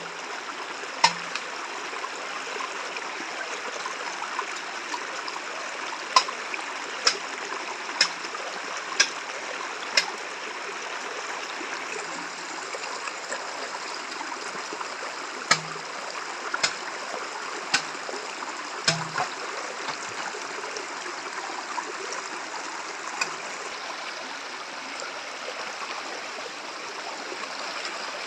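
A stream rushing steadily, with sharp knocks over it: five about a second apart for a stretch, others scattered.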